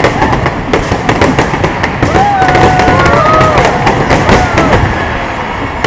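Fireworks display: many bangs and crackles in quick succession.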